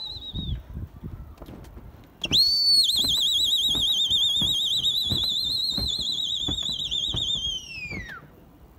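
A pigeon flyer's loud, high whistle with a fast warble, held for about six seconds from about two seconds in, then sliding down in pitch as it ends, sounded to his flock wheeling overhead. A shorter, slightly falling whistle trails off right at the start.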